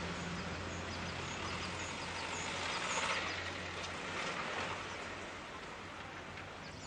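Outdoor roadside ambience: a steady traffic noise that swells about three seconds in and fades, with faint, regularly repeated high bird chirps.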